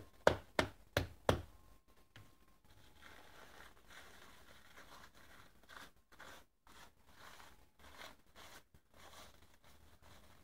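About five sharp knocks in quick succession at the start, then a wrapping sheet crinkling and rustling under the worker's hands.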